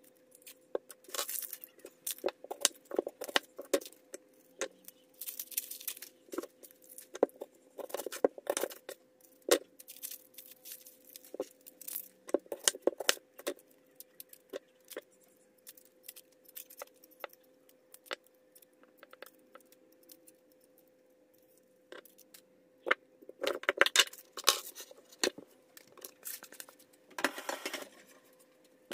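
Dry papery skin being peeled off brown onions by hand, crackling and rustling in irregular bursts, with light knocks of the onions on a plastic chopping board.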